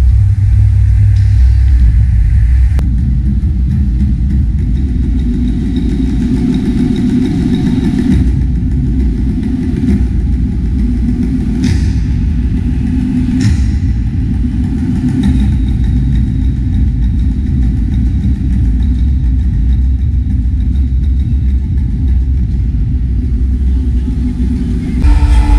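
A loud, deep rumble from a live stage show's sound system, with two sharp cracks about halfway through.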